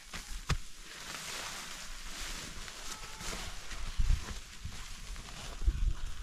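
Rustling and crackling of chopped green fodder and plastic sacks being handled on a plastic tarp, with a couple of sharp clicks in the first second and a few low thumps later on.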